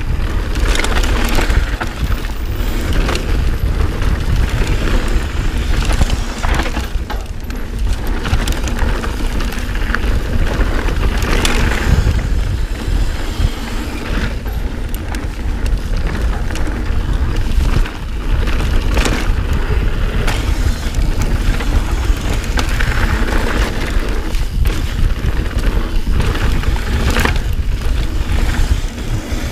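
Mountain bike running fast down a dirt trail: tyres rolling over dirt and roots, with the bike clattering over bumps throughout. Heavy wind rumble on the camera's microphone.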